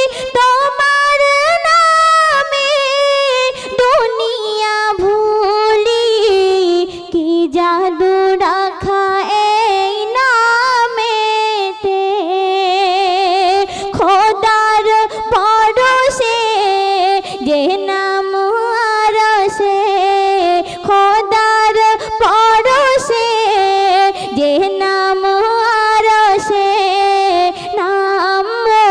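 A high voice singing one continuous melodic line in a Bengali Islamic ghazal (naat), with long held notes, vibrato and gliding ornaments.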